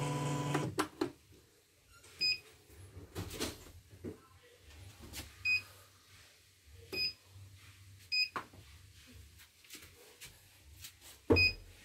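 Key beeps from a CNY portable embroidery machine's control panel as a design file is picked from its file list: five short high beeps a second or more apart, among soft clicks, with a knock near the end.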